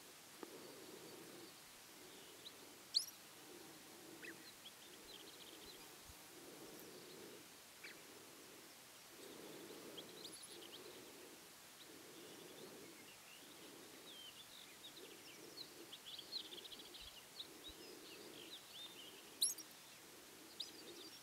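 Faint open-air ambience with scattered high bird chirps and a spell of twittering after the middle. Two short, sharp high calls stand out, about three seconds in and near the end.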